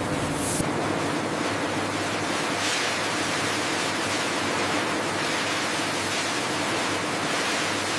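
Steady rushing hiss of water jetting from a spray washer's nozzles, with gentle swells in strength.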